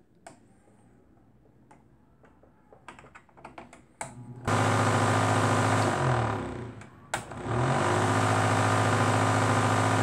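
A microwave oven fan motor, run from a bench transformer, buzzing loudly with a deep mains hum. After a few switch clicks and handling knocks it comes on about halfway through, cuts out briefly with a short wind-down, and starts again.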